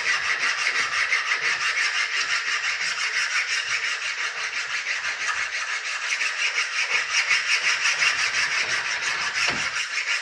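Flat metal file rasping back and forth along the rails of a chainsaw guide bar in quick, even strokes, dressing down the bar's worn rails.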